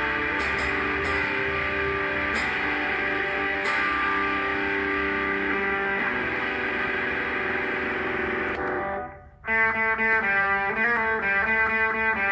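Electric guitar played through a Zoom G1X Four multi-effects pedal: sustained ringing chords, then the sound drops out for a moment about nine seconds in as the next preset patch comes on, followed by a run of quickly repeated picked notes with a different effect.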